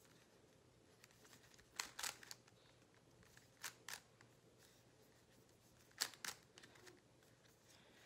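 GAN 356 M Lite magnetic speedcube being turned during a solve: faint clicks of the plastic layers turning. They come in three quick pairs about two seconds apart, over near silence.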